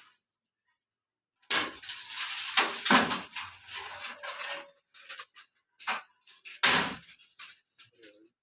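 Crashing, rustling clatter of cut coconut palm material coming down, starting about a second and a half in and lasting a few seconds, then a few scattered knocks and one more sharp crash near the end.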